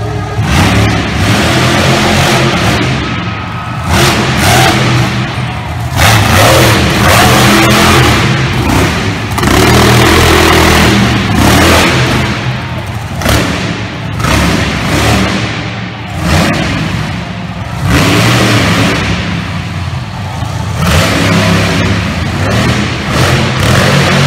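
Monster truck engines revving hard in repeated loud surges, rising and falling every couple of seconds as the trucks throttle up for their runs and jumps.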